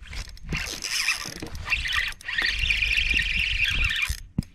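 Spinning reel's drag squealing as a hooked fish pulls line off: a steady, high buzz starts about halfway through and cuts off suddenly near the end.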